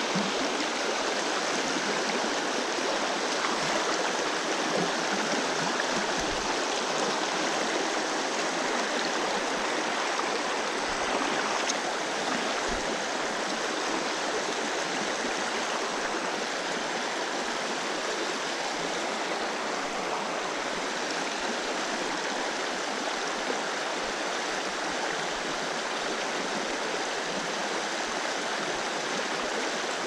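Creek water flowing: a steady, continuous rush of running water.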